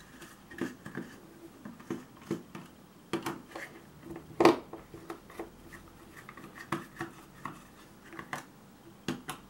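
Screwdriver turning small screws out of a 3D-printed plastic case: scattered light clicks and short scrapes, with a sharper click about four and a half seconds in.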